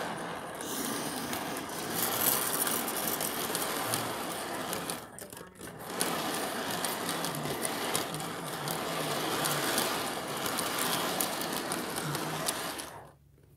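Model freight train cars rolling along the track close by: a steady, busy clatter of wheels on the rails. It dips briefly about five seconds in and stops shortly before the end.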